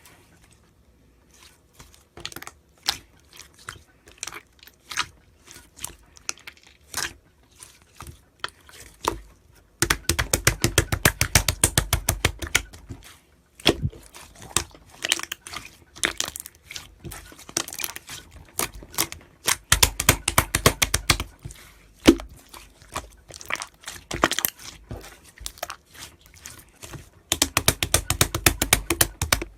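Purple slime being squished and pressed by hand, giving sharp clicking and popping sounds; three times the clicks come in dense rapid runs, about ten, twenty and twenty-eight seconds in.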